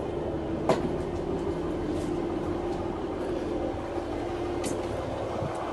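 Class 150 Sprinter diesel multiple unit's underfloor diesel engine idling, a steady hum with a held low tone, heard from inside the carriage. A sharp knock sounds about a second in and a fainter click near the end.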